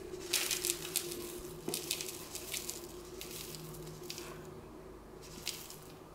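Rolled oats poured from a plastic bag into a plastic mixing bowl on a kitchen scale: the falling flakes make many small quick ticks, densest in the first couple of seconds, then thinning to a few scattered ones.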